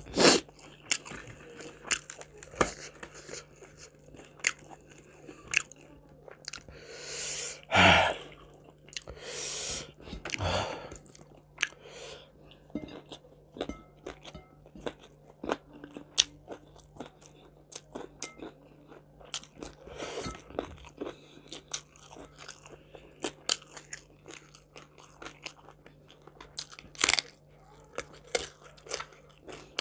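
Close-miked eating: a person chewing a meal of rice, fried chicken and salted fish with many sharp, crisp crunches, and a few longer, louder mouth sounds about 7 to 11 seconds in.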